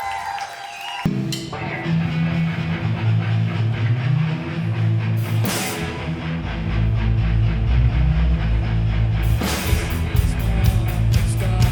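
Live rock band starting a song's instrumental intro: guitar and bass come in suddenly about a second in, a cymbal crashes near the middle, and the drum kit joins with a steady beat near the end.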